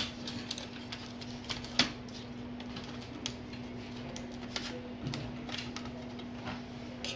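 Plastic pry tool clicking and scraping against a Dell Inspiron 15's motherboard and plastic chassis as the board is worked loose, with scattered sharp clicks, the loudest about two seconds in, over a steady low hum.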